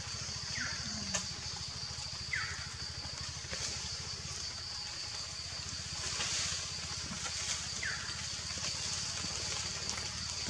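Outdoor forest ambience: a steady high-pitched hiss over a low rumble. Three short falling chirps come under a second in, about two and a half seconds in, and about eight seconds in.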